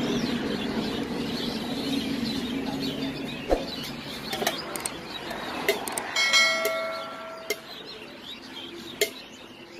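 Sparse sharp clinks of a metal spoon against a steel mixing tin at a street-food stall. A short bell-like ring sounds about six seconds in. A low background hum fades away over the first few seconds.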